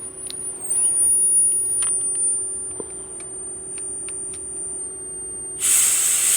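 Small clicks of parts being handled, then near the end a sudden loud hiss of compressed air from a blow gun, blowing through a carburetor fuel passage to check that it is clear.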